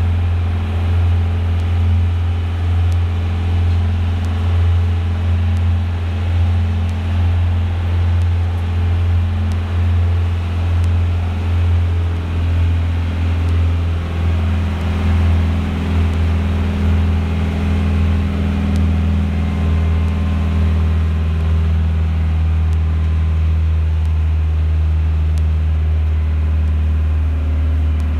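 A harbour ferry's engine running steadily while underway, a deep, even drone, with the rush of water along the hull.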